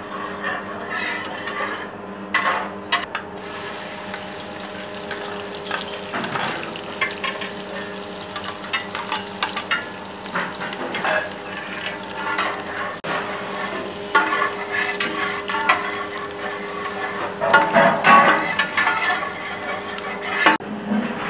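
Hot oil sizzling in a large metal pot as chopped onions and green chillies fry with whole spices, stirred and scraped with a long metal spatula. The sizzle grows louder a few seconds in, with a steady low hum beneath it.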